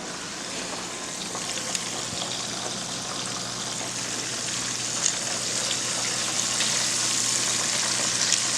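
Battered chicken deep-frying in hot oil: a steady sizzle with a few faint pops, growing gradually louder.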